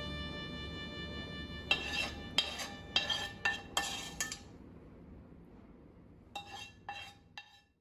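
A metal spoon clinking against ceramic plates as sauce is served onto the chicken. It makes a quick run of light, ringing clinks, then a few fainter ones near the end.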